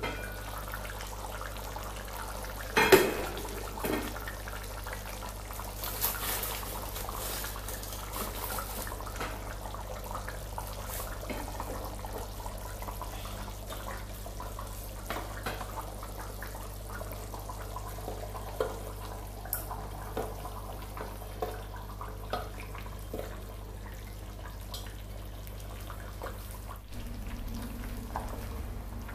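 A pot of tomato stew simmering, with soft bubbling and scattered small clicks and taps of cookware; a louder knock comes about three seconds in.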